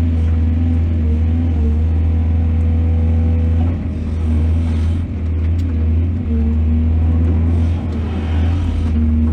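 Excavator's diesel engine running with a steady low rumble and a whining tone over it; the engine note dips briefly a few times in the middle.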